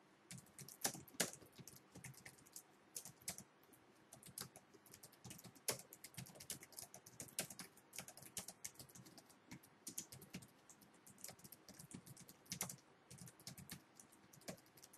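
Computer keyboard being typed on: a run of quick, irregular keystroke clicks with a few short pauses, faint.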